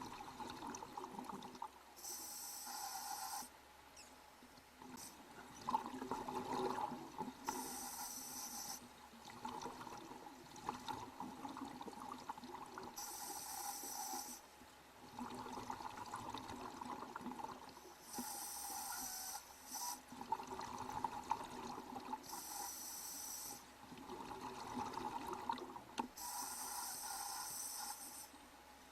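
Scuba diver breathing through a regulator underwater: about six breaths, each a short hissing inhale followed by a longer burst of bubbling exhale.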